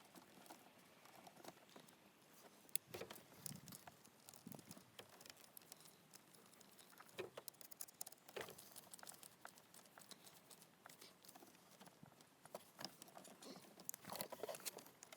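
Faint, irregular clicks, taps and rustles of hand work on fuel hoses and fittings, over near silence.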